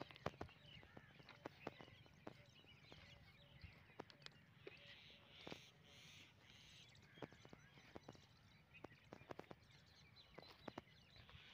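Near silence: faint bird chirping with scattered light clicks and crunches from footsteps on the gravel ballast beside the track.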